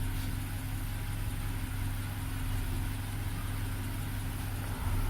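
A 2010 BMW 328i's engine idling steadily with a low hum. The car is being diagnosed for a misfire.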